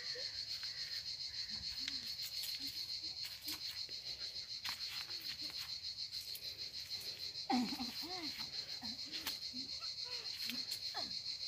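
A steady, pulsing, high-pitched insect chorus, with a few short vocal sounds about two-thirds of the way through.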